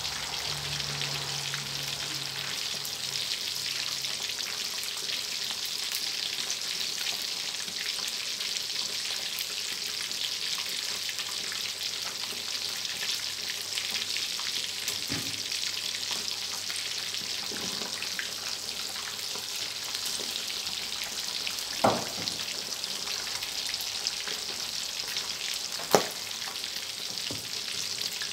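Pieces of sun-dried red tilapia deep-frying in a wok of hot oil: a steady, dense sizzle. Twice in the second half a sharp pop stands out above it.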